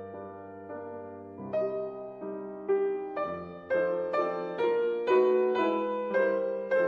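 Background piano music, a new note or chord struck about every half second, getting louder about a third of the way in.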